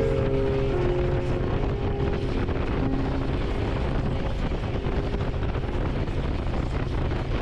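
Motorcycle engine running at road speed, with heavy wind noise on the microphone.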